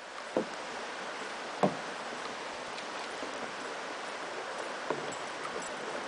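Steady outdoor hiss of river and open air, broken by three short knocks: one near the start, a louder one under two seconds in, and one about five seconds in.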